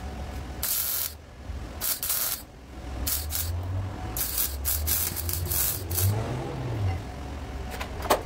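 Irregular scraping and rattling of sheet-metal car body parts being handled and fitted at a door sill, over a steady low rumble that rises and falls in pitch once near the end.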